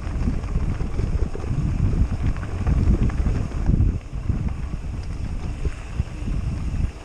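Mountain bike rolling over a loose gravel and dirt track: an uneven rattling rumble of tyres and frame jolting on stones, mixed with wind buffeting the microphone. The rumble eases a little about four seconds in as the track gets smoother.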